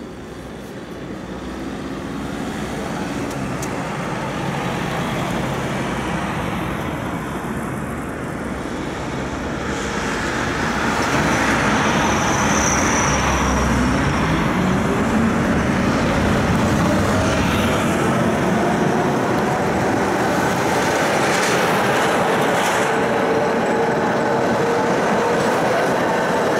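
Electric tram running along its track, heard from inside the car: a steady rumble of wheels on rails that grows louder about ten seconds in, with a faint whine of the traction motors.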